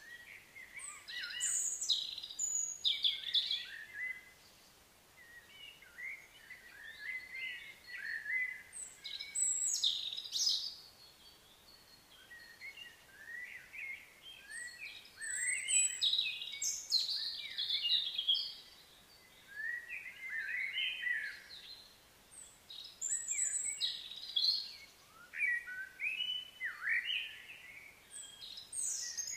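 Small birds chirping and calling in spells of quick, sliding notes, with short quieter lulls in between.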